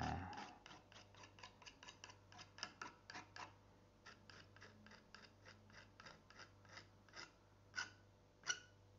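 Metal palette knife dabbing and scraping oil paint onto a textured painting board: a quick run of faint, short scratchy strokes, about four or five a second, with two louder strokes near the end.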